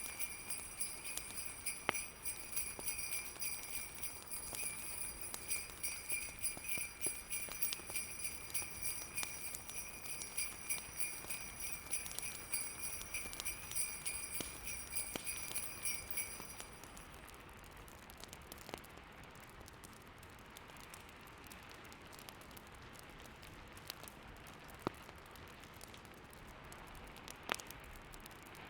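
Sleigh bells jingling steadily, stopping about two-thirds of the way through. After that there is only a soft, steady snowstorm hiss with a few scattered fireplace crackles.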